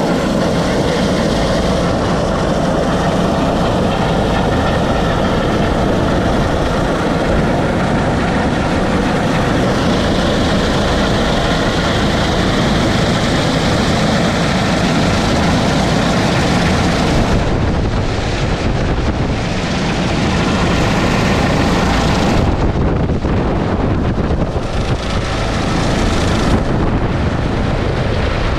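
Rescue helicopter hovering close overhead, its rotor and turbine engine running steadily, with wind rushing over the microphone from the rotor downwash.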